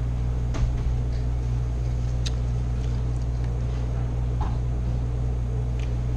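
Steady low hum, with a few faint clicks and taps as seafood is handled in a foil pan.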